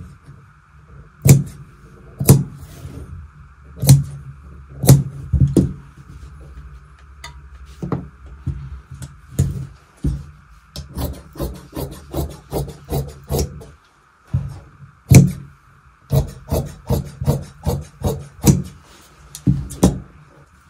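Irregular sharp clacks and taps from tailoring tools worked on a cutting table while blouse fabric is marked out for cutting, in places in quick runs of about three a second, over a steady low hum.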